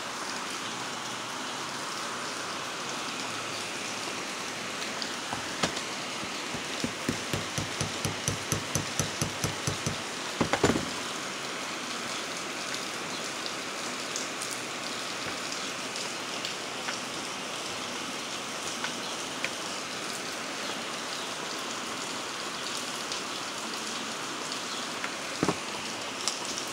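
Light taps on a small transformer's laminated steel core, about three a second for a few seconds and ending in a louder knock, as its E-shaped laminations are worked loose; one more sharp knock near the end. A steady rain-like hiss runs underneath.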